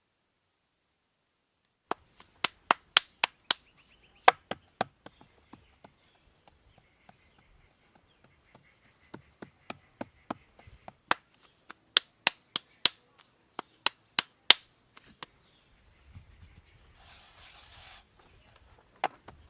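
Knife chopping on a cutting board: sharp strokes in quick runs of about four a second, in two bursts with scattered single knocks between. A brief hiss follows near the end.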